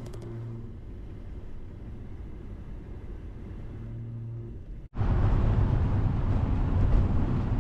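Vehicle driving: first a steady low engine hum, then, after a cut about five seconds in, louder road and engine rumble.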